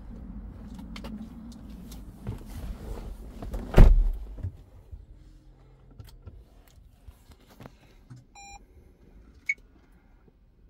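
A car door shuts with a loud thud about four seconds in, after some rustling and handling noise; near the end a short electronic beep sounds from the 2017 Toyota Prius's dashboard as the hybrid is powered on, with no engine cranking.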